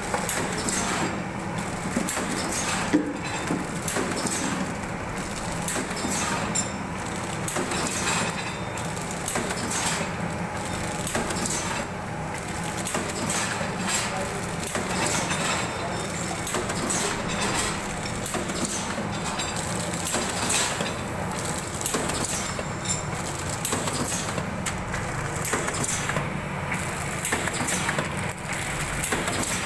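Vertical form-fill-seal pouch packing machine running, with sharp clacks every second or two from its sealing and cutting jaws over a steady mechanical noise.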